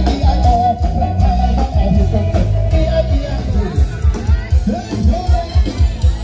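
Loud live band music with a fast, heavy bass-and-drum beat and a melody line, sung or played, over it.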